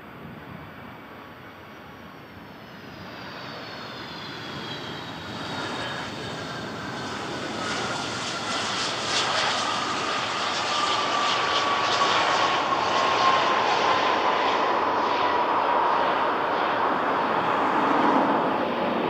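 Airplane engines growing louder as the aircraft comes close, with high whining tones that slowly fall in pitch over a rising rush of engine noise that peaks in the second half.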